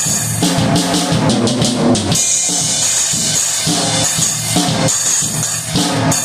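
Drum kit played in a steady beat with a single drumstick: bass drum and snare strikes under a cymbal wash that grows louder about two seconds in.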